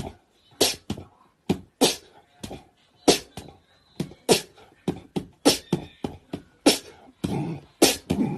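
A rhythmic run of short, sharp, beatbox-like bursts, one to two a second, with a brief busier patch near the end.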